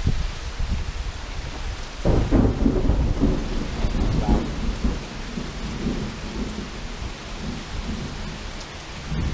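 Heavy rain falling steadily during a thunderstorm, with thunder rumbling. A loud peal breaks about two seconds in and rolls away over the next few seconds.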